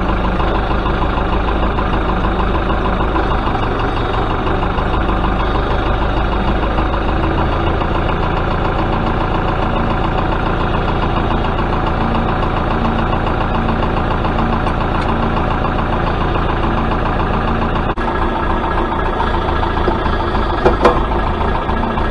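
Tractor engine running steadily, with a slight change in pitch partway through and a couple of short knocks near the end.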